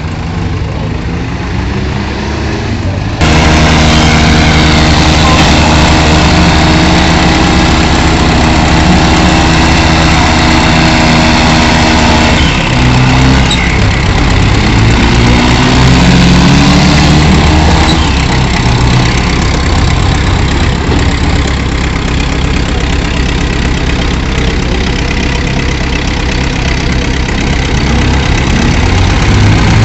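Two diesel farm tractors coupled back to back in a tug-of-war, with their engines running hard under load. About three seconds in, the engine sound jumps sharply louder. In the middle stretch the engine pitch rises and falls as the throttles are worked.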